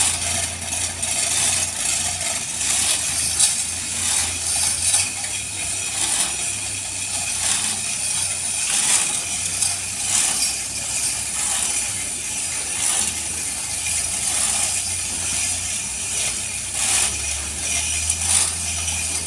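Irregular metallic clicking and clanking from work on a ship's propeller shaft as it is fitted, over a steady low machinery hum.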